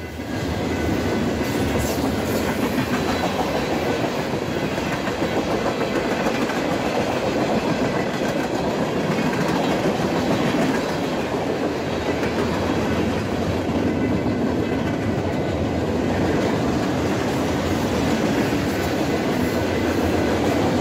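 Freight train's cars, coil cars and tank cars, rolling past at close range: a steady rumble of steel wheels on rail with clickety-clack over the rail joints.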